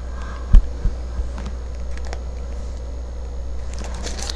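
Steady low hum with two dull thumps about half a second and a second in, the first the loudest; a faint crinkle of tissue paper near the end.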